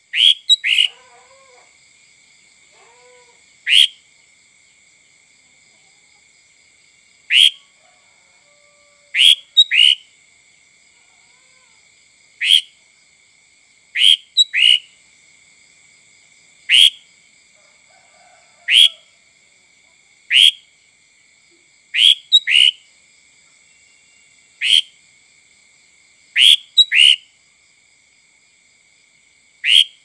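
Sooty-headed bulbul (kutilang) giving short, sharp calls, one every one to three seconds, several in quick pairs, over a faint steady high-pitched hum.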